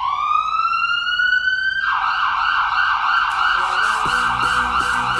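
Siren: a rising wail that levels off, then about two seconds in switches to a fast warbling yelp. Music with a ticking beat comes in under it near the end.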